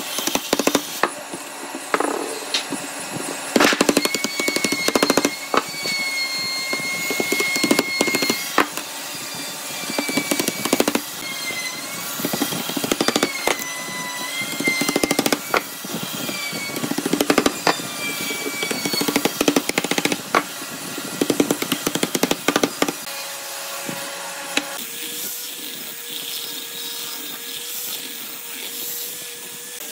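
Woodworking tools working wood, with many irregular knocks and scraping strokes. In the last few seconds a power tool's motor takes over with a steady hum.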